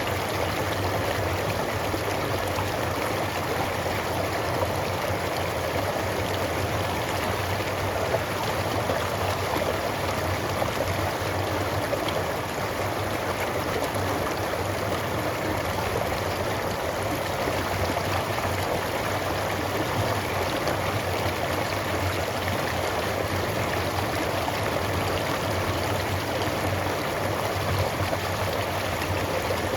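Small creek flowing and bubbling over stones in a steady, unbroken rush of water.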